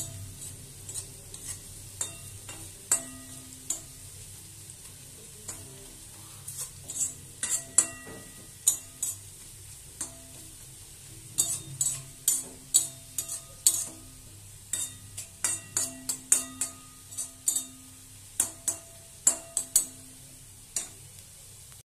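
Flat spatula stirring and scraping bitter gourd, onion and gram-flour batter around a metal wok, with many sharp irregular taps that make the pan ring briefly, over a faint sizzle of frying on a low gas flame. The taps are sparse at first and come thick and fast from about a third of the way in.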